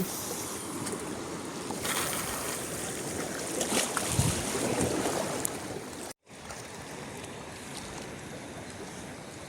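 Sea water washing at the shore with wind buffeting the microphone, a steady noisy wash that breaks off for a moment about six seconds in.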